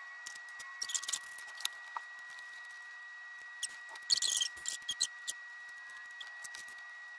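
Potting soil crumbling and rustling as hands lift an African violet and its root ball out of a plastic pot, in two short crackly bursts about a second in and about four seconds in, with scattered small ticks of soil and plastic between.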